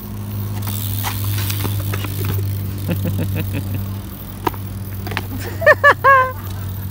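BMX bikes rolling on a concrete court under a steady low hum, with a few light clicks. Near the end, three short high-pitched calls in quick succession.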